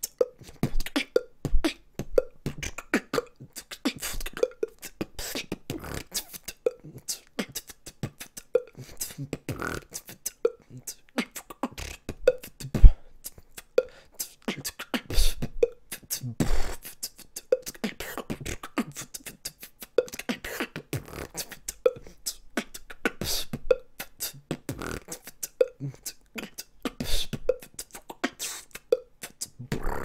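A person making rapid percussive mouth noises, clicks, pops and lip smacks, in a loose beatbox-like rhythm.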